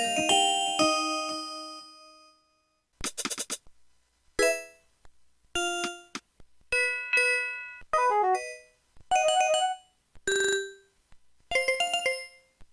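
Pantech U-5000 mobile phone's built-in system tones, heard direct from the handset's line output: a chime melody fades out over the first two seconds, then a string of about eight short electronic beeps and jingles follows, each under a second long, with brief silences between them.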